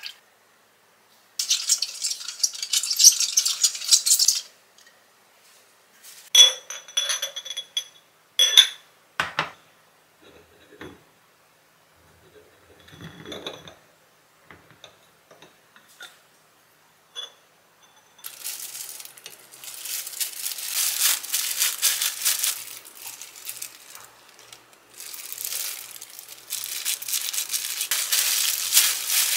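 A silicone spatula scraping round a small glass bowl, stirring sauce. Then a few sharp clinks of glass that ring briefly. From about two-thirds through, plastic disposable gloves crinkle steadily as cooked rice is pressed into a rice ball.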